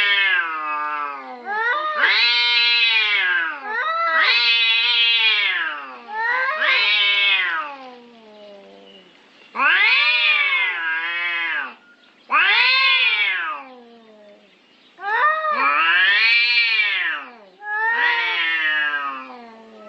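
Domestic cats caterwauling at each other in a territorial standoff: a string of long, wavering yowls, each a second or two, rising and falling in pitch, with short pauses between them.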